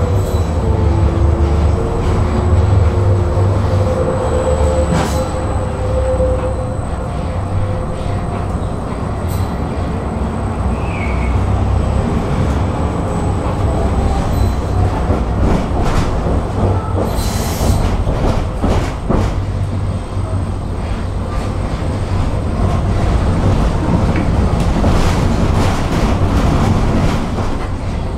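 Tram running along its tracks, heard from inside the car: a steady low rumble of wheels on rails, with a whine in the first several seconds. A brief hiss comes about two-thirds through, and sharp knocks sound as the wheels cross rail joints and points in the second half.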